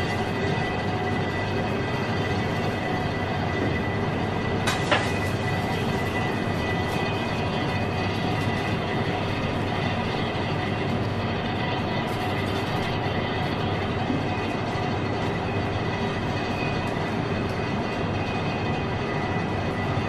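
Steady mechanical hum and hiss of commercial kitchen equipment running, with one sharp click about five seconds in.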